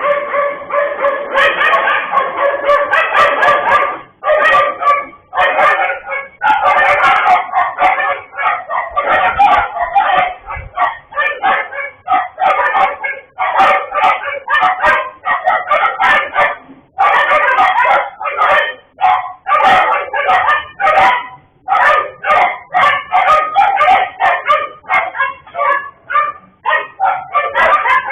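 Dogs howling and yelping in a near-unbroken string of pitched calls with short breaks.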